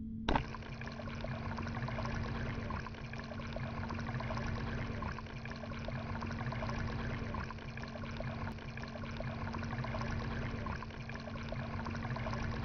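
Water pumped by a 750 GPH 12-volt bilge pump streaming out of a livewell aerator bar and splashing into the water in a cooler, with a steady low hum under it. A single sharp click comes just after the start.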